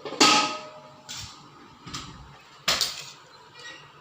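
Metal kitchen utensils clinking against a steel cooking vessel in about five separate strikes, roughly a second apart. The first strike is the loudest and rings briefly.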